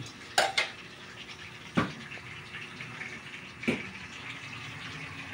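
Sinigang soup with fried salmon head boiling in a wok: a steady bubbling hiss, with three short clicks along the way.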